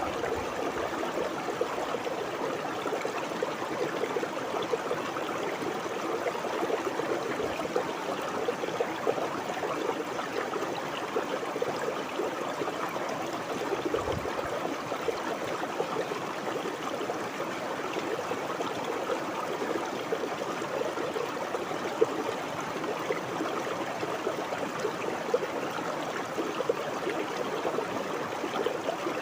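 Shallow stream water flowing and babbling steadily over rocks, a continuous gurgling rush.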